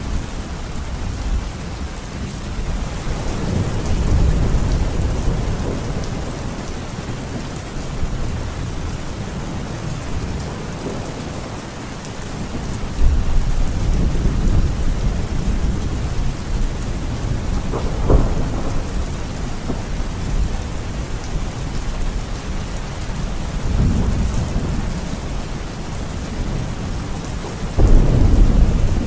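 Heavy, steady rain with thunder rumbling several times over it. One sharper clap comes partway through, and the loudest rumble comes near the end.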